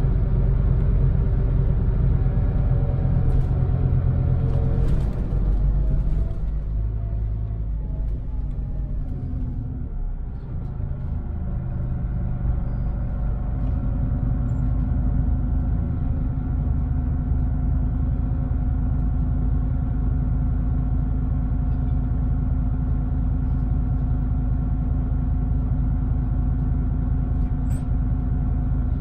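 Scania Interlink MD bus heard from inside the cabin: the engine runs under load for the first few seconds, with a brief hiss about five seconds in. The bus then slows to a stop and idles with a steady hum.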